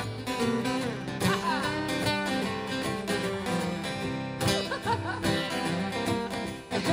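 Two acoustic guitars playing an instrumental blues break, a strummed rhythm under a lead line whose notes bend up and down in pitch.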